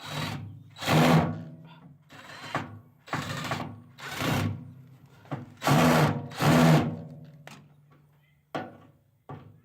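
Cordless drill/driver with a Torx bit running in about seven short spurts, whirring as it works at the microwave casing's tamper-proof Torx screws.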